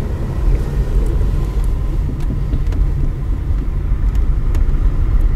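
Steady low rumble of a car driving, heard from inside the cabin: engine and road noise, with a few faint clicks.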